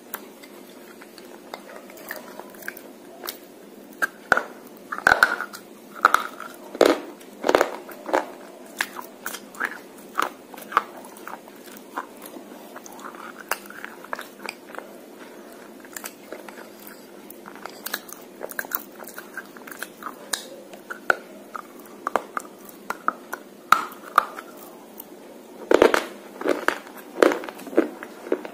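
Biting and chewing on a white slate pencil coated in red clay paste: a long run of sharp, brittle crunches, with thicker clusters about four seconds in and again near the end.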